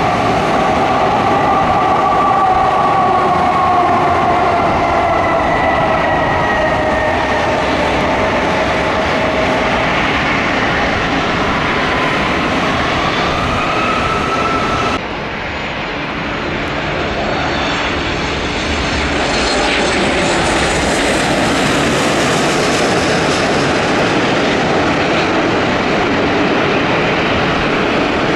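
Cessna 414's twin piston engines and propellers running as it lands and rolls out, their tones sliding down in pitch. About halfway through, an abrupt cut to a Boeing 737-8 MAX's CFM LEAP-1B jet engines on final approach, their noise swelling to a peak and easing slightly as it comes over the runway.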